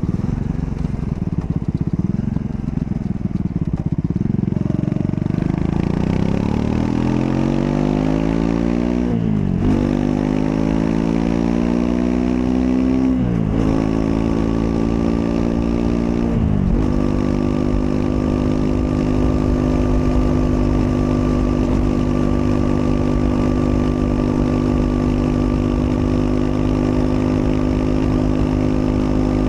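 2025 Triumph Scrambler 400 X's single-cylinder engine accelerating through the gears. Its note climbs in pitch, drops sharply at three upshifts, then settles into a steady, even drone at constant speed for the last twelve seconds or so.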